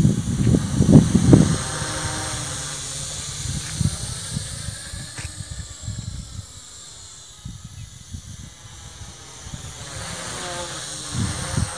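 Wltoys Q333B toy quadcopter's propellers whirring as a thin high hiss, swelling and fading as it flies. Gusts of wind buffet the microphone in the first second or so and again near the end.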